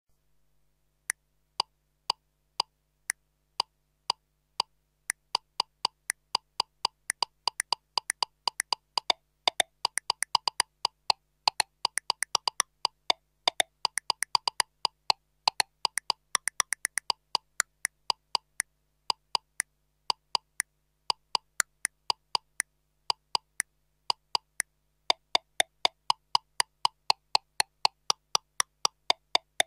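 Korg Kross metronome click ticking steadily at about two clicks a second, then breaking into fast, syncopated drum-like patterns of higher and lower clicks. It settles back to the plain steady beat about halfway through and breaks into the fast patterns again near the end.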